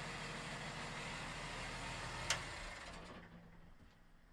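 Cummins 5.9 12-valve turbo diesel boat engine idling steadily. A single sharp click comes a little over halfway through, and then the engine sound dies away.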